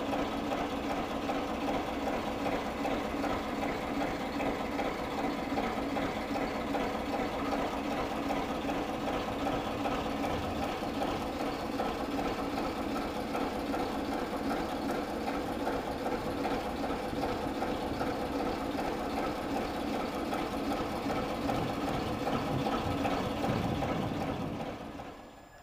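Diesel engine of a ČKD class 751 ("Bardotka") locomotive, a six-cylinder ČKD K6S230DR, running steadily at one pitch with a loud, even throb, fading out near the end.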